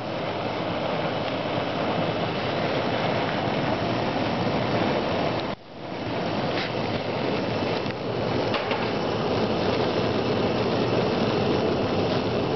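Several Wolf range gas burners burning with a steady roar, the flames not yet settled in while the oven warms up. The sound drops out sharply for an instant about halfway through.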